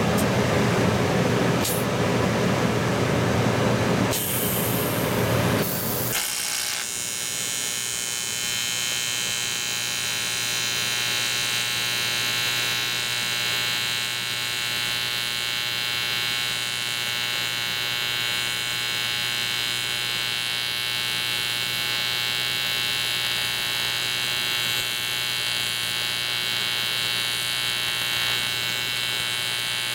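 A loud, rough noise for about the first six seconds cuts off and gives way to a steady electric buzz with a high edge: an AC TIG welding arc on the aluminium knucklehead crankcase, laying weld into a crack.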